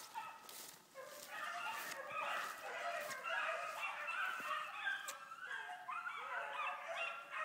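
A pack of dogs baying together in a continuous, overlapping chorus while running a rabbit on its trail.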